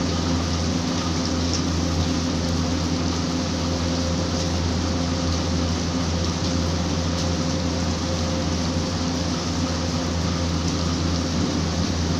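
Steady rain falling, with a constant low hum running under it.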